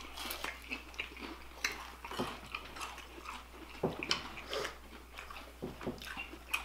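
People chewing breaded shrimp coated in very hot sauce at a table, with irregular small mouth smacks and clicks.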